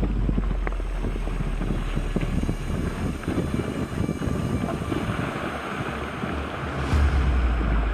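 Wind buffeting the camera microphone: a loud, gusty low rumble under a steady hiss, with a change in the sound about seven seconds in.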